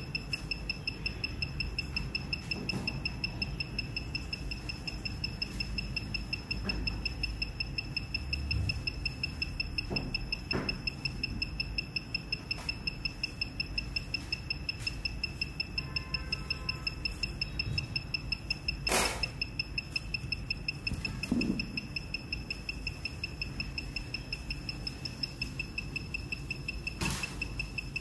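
Handheld ECU programmer's electronic beeper sounding a high, evenly pulsing beep, several beeps a second, throughout. A couple of sharp knocks come through about two-thirds of the way in and near the end.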